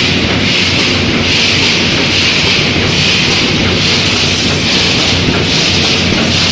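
Automatic wire mesh welding machine running through its welding and feed cycle, a hissing clatter that repeats about once a second over a steady electrical hum.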